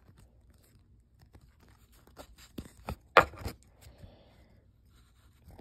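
Trading cards handled and flipped through by hand: soft scattered clicks and scrapes of card sliding against card, with one louder, sharper sound a little over three seconds in.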